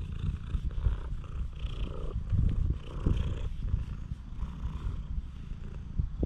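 Stray cat purring close up while its head is stroked.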